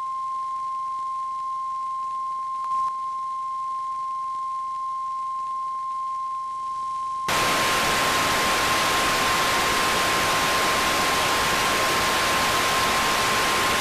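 Steady 1 kHz sine test tone of the kind broadcast with a TV test card. About seven seconds in, louder TV static hiss from an untuned set joins it, the tone still running underneath.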